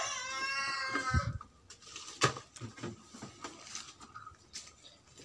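A drawn-out animal call in the first second or so. It is followed by a few short knocks and clunks as old CRT television sets are handled on a pile.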